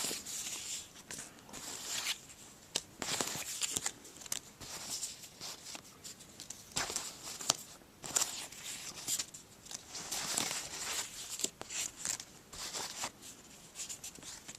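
Paper stickers being handled and shuffled through by hand: irregular rustling and sliding of paper, in short bursts every second or so.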